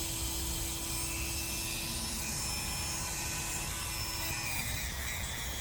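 Dremel rotary tool with a sanding pad running steadily, grinding down a dog's overgrown toenail.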